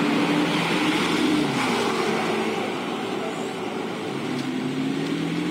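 Car engine and road noise heard from inside a moving car. The engine note drops in the middle and rises again near the end.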